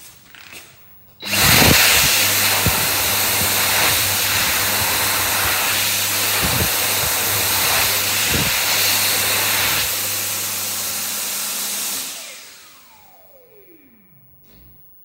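Dyson Airblade HU02 hand dryer switching on about a second in and blowing a loud, steady rush of air with a low hum under it. Near the end it cuts off and its motor whine falls away as it spins down.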